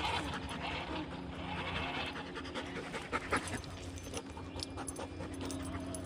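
A dog panting close to the microphone.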